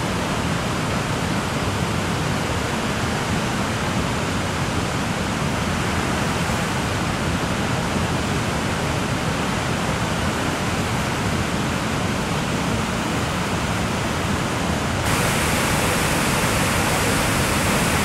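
Steady rushing of a large waterfall and rapids in flood, muddy water pouring over rocks. About fifteen seconds in, the rush turns suddenly brighter and a little louder.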